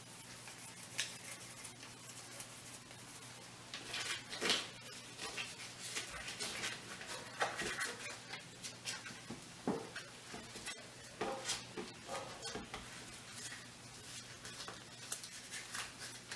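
Dried corn husk rustling and crackling in irregular bursts as hands fold it around a log of corn dough.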